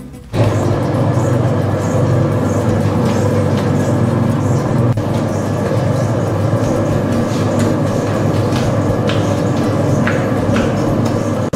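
Commercial spiral dough mixer starting up a moment in and then running steadily, its motor humming evenly as the spiral hook kneads a firm sourdough dough in the steel bowl.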